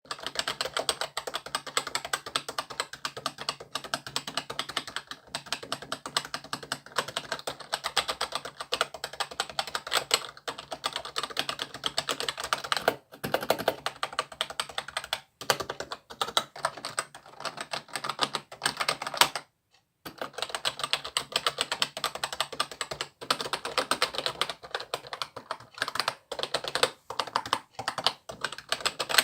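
Keys of a Genius GX Gaming Scorpion K10 keyboard clacking in fast, continuous typing, with one brief pause about two-thirds of the way through.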